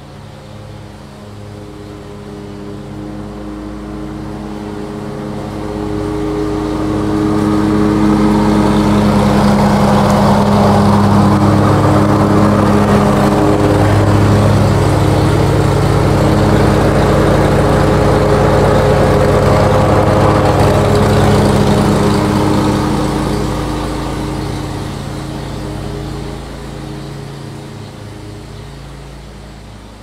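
Lawn mower engine running at a steady pitch, growing louder as it comes close, staying loud for about fifteen seconds, then fading as it moves away.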